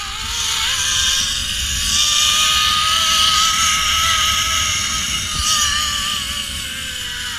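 Zipline trolley pulleys whirring along a steel cable: a whine that climbs in pitch as the rider picks up speed, holds, then sinks again near the end as the trolley slows, over a steady rushing hiss.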